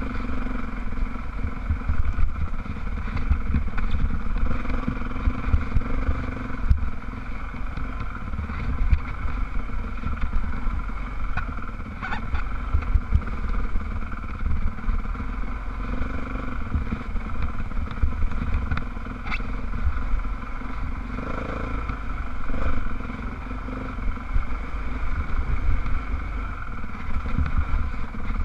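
Dirt bike engine running at steady, low revs while ridden along a rough trail, picked up by a helmet-mounted camera, with a low buffeting rumble underneath and a few light clicks.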